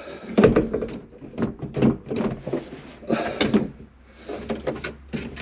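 Suzuki Every dashboard being worked into a kei truck's cab: a string of irregular knocks, bumps and scrapes as it catches against the cab.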